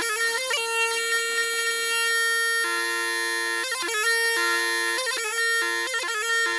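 Bagpipe music: a reedy melody of held notes broken by quick ornamental flourishes, with two lines sounding together at times.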